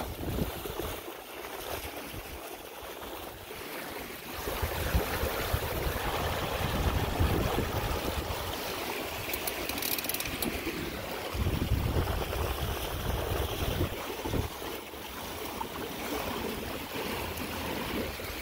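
Water rushing and splashing along the hull of a Snipe sailing dinghy under sail, with wind gusting on the microphone. It grows louder about four seconds in.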